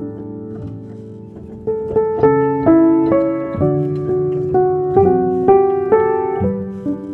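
Piano music: softly held chords, then from about two seconds in a steady run of notes, about two a second.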